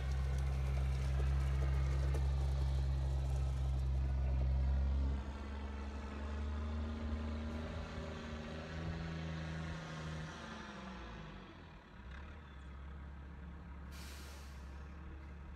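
GMC tandem-axle dump truck's diesel engine pulling away and fading into the distance, with a sudden drop in level about five seconds in. A brief hiss near the end.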